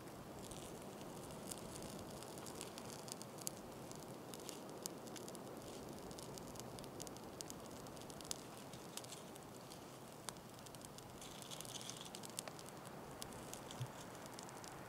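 Faint crackling and scattered sharp ticks from a small tinder bundle catching light from burning fatwood, over a steady soft hiss.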